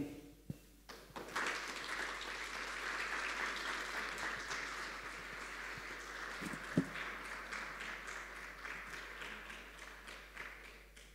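Audience applauding, a dense patter of clapping that starts about a second in and thins out before stopping near the end. A single brief louder sound cuts through the clapping about two-thirds of the way through.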